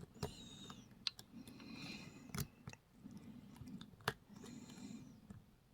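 Hook pick working the pins at the back of a challenge lock's keyway under very light tension: faint scraping with three sharp metallic clicks.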